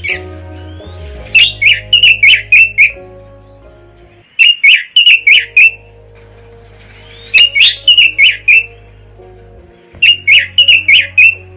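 European robin calling in four short bursts of quick, repeated high notes, with soft background music holding steady low tones underneath.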